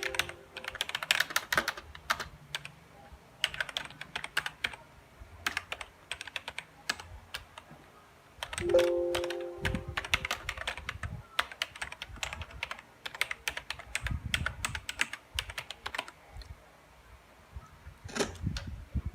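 Typing on a K618 Mamba mechanical gaming keyboard: runs of rapid, clacking keystrokes with short pauses. A brief chime-like tone sounds about halfway through.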